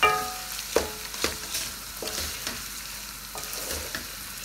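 Wooden spatula stirring and scraping pieces of boiled mutton around a metal pan, knocking against the pan about every half second so that it rings briefly, over a light sizzle of frying. This is the bhuna stage, frying the boiled meat with onion, ginger and garlic.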